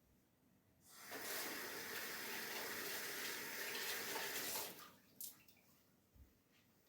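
Water running for about four seconds, then cut off, followed by a short click.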